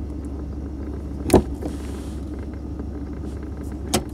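Steady low rumble of a GM pickup running, heard from inside the cab. Two sharp clunks, one about a second in and one near the end, as the NP241-C transfer case's floor shift lever is moved to engage four-wheel drive.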